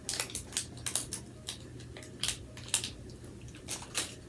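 Dog crunching a hard treat in its mouth: a string of about ten sharp, irregular crunches.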